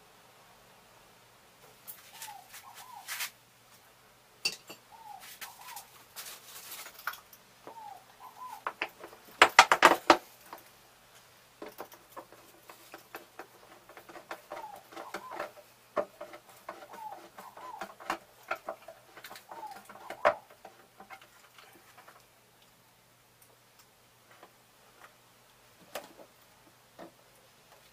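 A bird chirping in short rising pairs, with scattered clicks and clinks of copper wire being handled. A louder, dense burst of sound comes about nine to ten seconds in.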